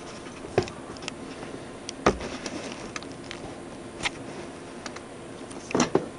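Handling noise from a camera being moved in close to a circuit board: a handful of soft knocks and clicks a second or two apart, the strongest about two seconds in and a quick pair near the end, over a faint steady room background.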